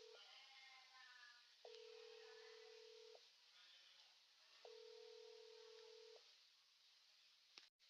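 Faint telephone ringing tone heard down the line: a single steady tone, each about a second and a half long, repeating every three seconds, three times. Faint wavering voice-like sounds come between the tones, and a click near the end.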